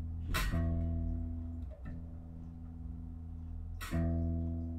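Gibson SB 400 electric bass being played: single plucked notes ring out with long sustain, one struck about a third of a second in, changing note near the two-second mark, and another struck just before the end that rings and slowly fades.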